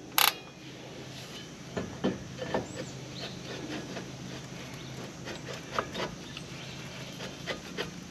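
Jeep Wrangler TJ rear drum brake: one sharp click of the star adjuster wheel being turned at the start, then the brake drum being slid over the shoes and turned by hand, with a series of light scrapes and knocks as the shoes rub the drum while checking the adjustment for drag.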